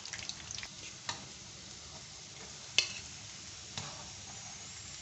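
Breaded chicken sticks deep-frying in oil in a karahi: a steady sizzle of bubbling oil, with a few sharp clicks, the loudest near the middle, as a metal slotted spoon turns them against the pan.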